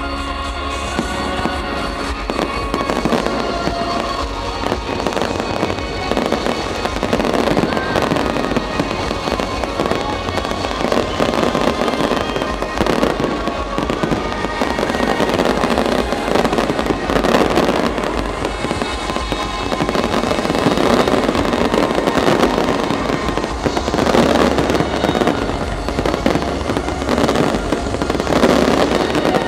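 Aerial fireworks bursting in a dense, continuous barrage of bangs and crackles, heaviest near the end, with the show's music playing underneath.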